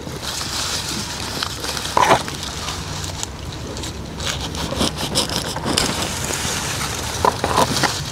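Rustling and crackling of lemongrass leaves and stalks being handled and broken off at the base of the clump, with a few sharper cracks along the way.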